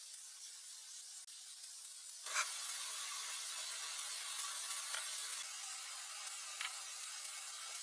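A steady high hiss, which gets louder about two seconds in, starting with a brief click.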